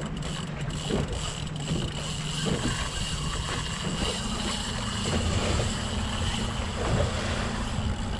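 Boat's outboard engine running at low speed under wind and water noise, its note stepping up slightly about halfway through as the boat is used to pull a big fish off a wreck.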